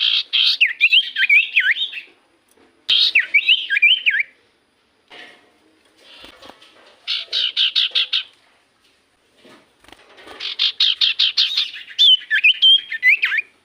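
Common iora (cipoh) calling in four bursts: each is a run of rapid chattering notes, about eight a second, mixed with quick up-and-down whistled phrases, with short pauses between the bursts.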